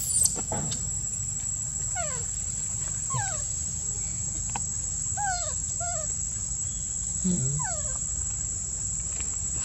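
Newborn baby monkey giving about five short, thin cries that fall in pitch, over a steady high-pitched insect drone.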